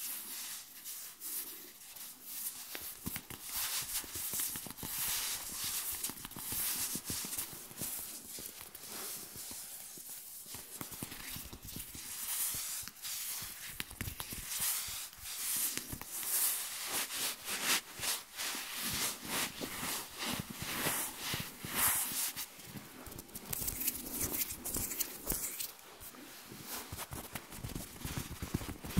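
Close-miked ASMR hand sounds: palms and fingers rubbing together and brushing over bare skin of the forearm, a dense run of soft crackles and swishes.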